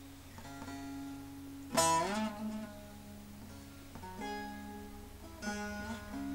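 Bağlama (Turkish long-necked lute) played slowly solo: sparse plucked notes left to ring, the loudest struck about two seconds in and bending slightly up in pitch, with further single notes near the middle and the end.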